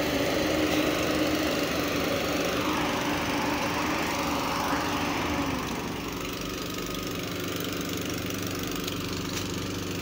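Diesel engine of an Escorts F15 pick-and-carry crane running steadily while the crane hoists a concrete chamber ring. Its note shifts in the middle, then it runs slightly quieter from about six seconds in.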